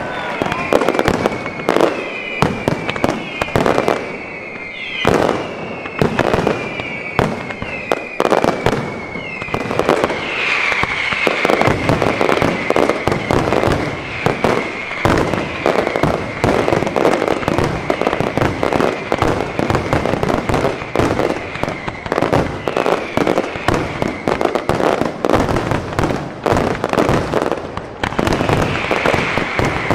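Aerial fireworks display: shells bursting in quick succession, with repeated whistles falling in pitch over roughly the first ten seconds. From about ten seconds in, the bangs and crackle run together into a dense, near-continuous barrage, and a cluster of whistles returns near the end.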